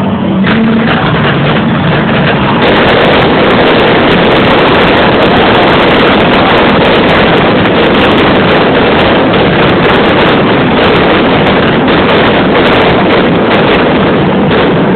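Firework barrage: many explosions and crackles so close together that they merge into one continuous din. It grows denser and louder about two and a half seconds in, then stays loud enough to overload the recording.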